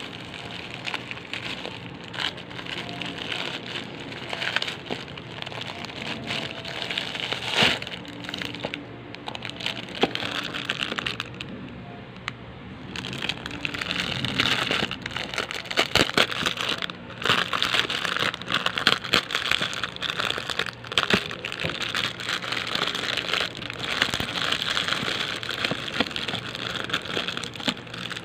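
Plastic packaging, bubble wrap and clear plastic bags, crinkling with many small sharp crackles as hands unwrap and handle it. The handling is busier and louder in the second half.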